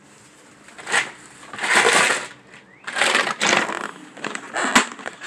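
Rustling and scraping in several bursts as things are moved around in a plastic storage tote, with a sharp knock near the end.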